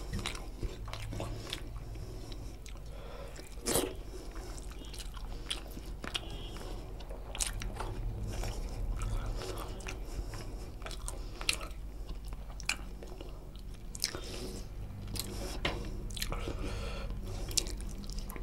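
A person chewing and biting chicken curry and rice close to the microphone, with frequent irregular wet mouth clicks over a steady low hum.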